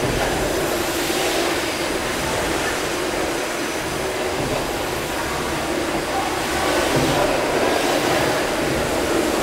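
Gimson steam beam engines running in the engine hall: a steady mechanical din with steam hiss, swelling and easing slowly as the engines work through their strokes.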